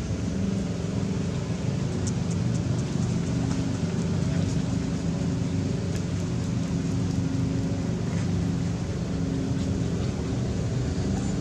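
Steady low droning hum, engine-like, with a few faint ticks about two to three seconds in.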